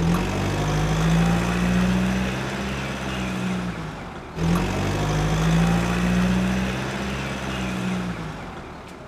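Vehicle engine sound effect, running steadily with a low hum. It drops out about four seconds in and starts over, the same clip played twice back to back.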